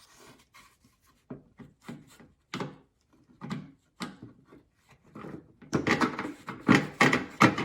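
Trunk lid garnish knocking and scraping against the trunk lid as it is worked into place over its mounting studs, in short irregular handling knocks. About two-thirds of the way in, the rubbing and clattering grow louder and denser.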